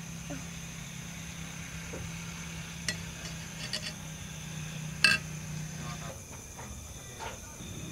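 Light clinks and handling sounds of glass and ceramic dishes as a floured pork cutlet is dredged and dipped into a bowl of beaten egg, with one sharper click about five seconds in. A low steady hum runs underneath and stops about six seconds in.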